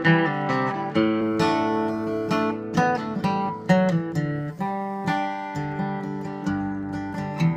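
Instrumental break of a country-folk song: acoustic guitar strummed and picked, with a new note or chord about every half second and no singing.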